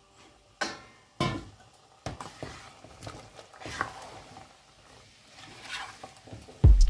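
A spatula stirring halved radishes around in a nonstick cooking pot, with scattered knocks and scrapes against the pot. Background music with a heavy beat comes in near the end.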